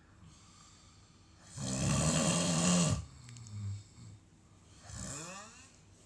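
A sleeping person snoring: one long, loud snore starting about a second and a half in, followed by softer snuffling breaths and a brief low murmur near the end.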